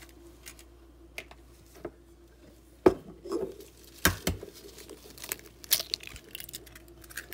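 Raw eggs being cracked by hands in disposable gloves over a glass bowl: a sharp knock about three seconds in and two more about a second later, with crackling of shell and crinkling of the gloves.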